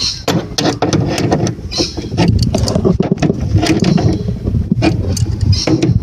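Adjustable spanners (shifters) clinking and scraping on a brass hydraulic hose fitting as a hose tail is wound into it under hard hand pressure: many short irregular metal clicks over a low rumble.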